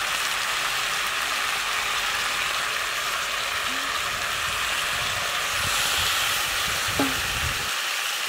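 Taro stolons and potato pieces sizzling steadily in hot mustard oil in a metal kadai, with a little water poured in from a steel bowl partway through.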